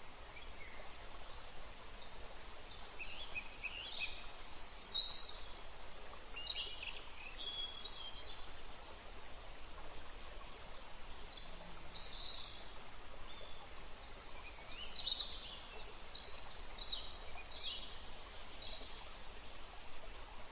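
Birds chirping in short, quick phrases over a steady hiss of background noise.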